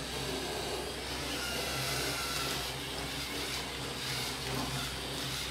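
Small electric motors of two LEGO sumo robots whirring steadily as the robots drive across the ring and meet in the middle.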